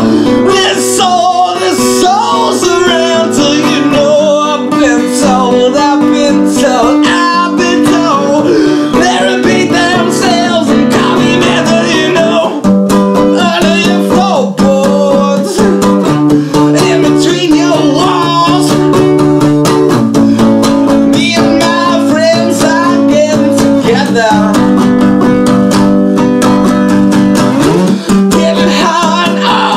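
Acoustic guitar strummed steadily, its chords changing about every four seconds, with a man's voice singing over it.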